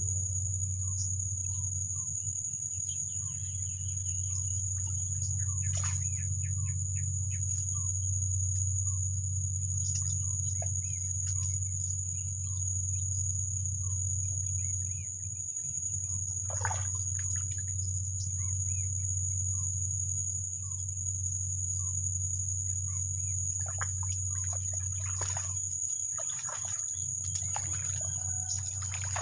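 Steady high-pitched insect drone over a low steady hum, with short falling chirps repeating about once a second. Occasional short rustles and knocks, busier near the end.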